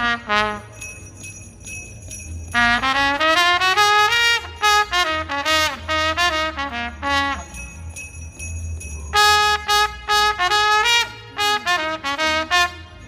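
Solo trumpet playing a Christmas melody, a string of held and short notes.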